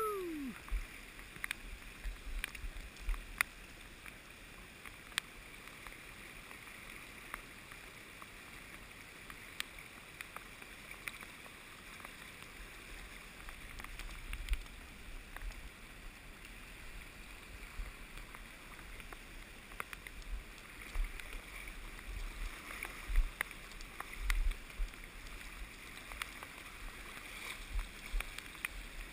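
Fast river riffle rushing and splashing over rocks around a wading angler, a steady hiss of flowing water, with scattered low thumps and short clicks against the camera.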